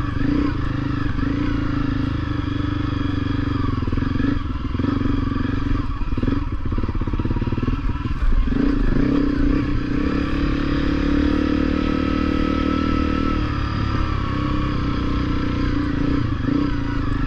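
Honda CRF250L's single-cylinder four-stroke engine running at low, wavering revs on a rough, sandy trail, with a few knocks and clatter from the bike over the terrain.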